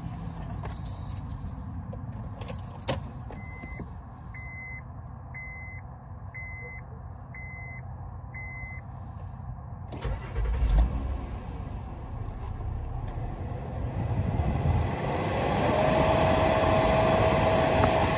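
Six short electronic beeps about a second apart, a thump and low rumble about ten seconds in, then the new front blower motor of a 2015 Honda Pilot starting up: a rush of air builds and a whine glides up and holds steady. The motor runs, a sign the replacement works.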